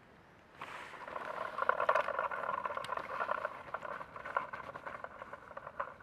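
Dry fallen leaves rustling and crackling underfoot as children walk through them. The sound starts suddenly about half a second in.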